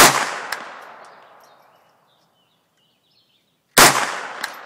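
Two shots from a Smith & Wesson M&P 15-22 .22 rimfire pistol, about four seconds apart, each followed by a long echoing tail. About half a second after each shot comes a short, sharp tick.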